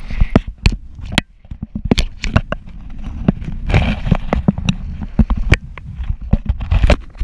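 Wind rumbling on a handheld action camera's microphone, with many irregular sharp knocks and rattles as the camera is swung and handled.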